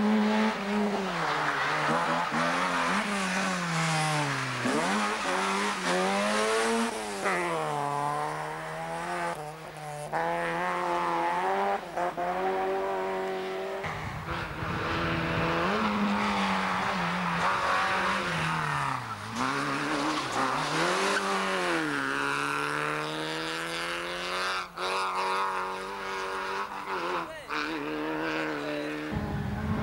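Rally car engines revved hard through a stage, the pitch repeatedly climbing under acceleration and dropping off on lifts and gear changes as cars come past one after another. The sound changes abruptly about halfway through and again near the end.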